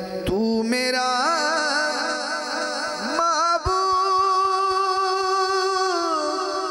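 A man singing a naat (Urdu devotional poem) into a microphone, drawing out long wordless held notes: first wavering and ornamented, then a steady held tone that steps down near the end.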